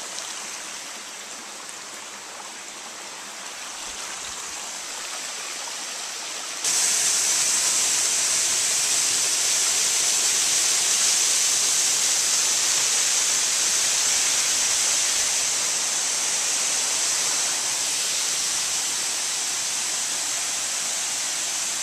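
Steady rush of running water from a woodland stream; about seven seconds in it turns suddenly louder and brighter into the full, even rush of a waterfall pouring over rock.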